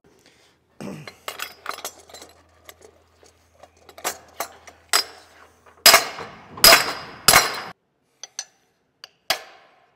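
Metal clinks and knocks of hand tools working on a differential housing and its parts, with three loud, sharp metal strikes close together about two-thirds of the way through.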